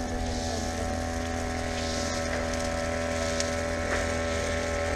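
Small engine of a grass cutter running steadily, holding one constant pitch.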